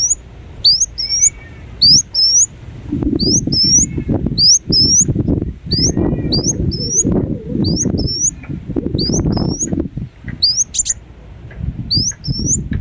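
Ruby-cheeked sunbird calling over and over: short, high chirps that rise in pitch, often in quick pairs, about one call a second. A low, rough noise runs under them through most of the middle.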